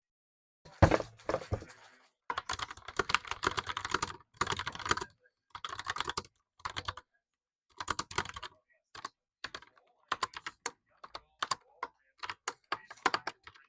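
Logitech POP Keys mechanical keyboard being typed on: clattering key strokes in quick runs, with a heavier thump about a second in and sparser single key presses in the second half.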